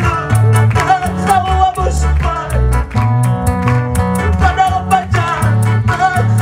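Christian worship song played live by a band: an electric guitar melody over strong bass notes and a steady beat.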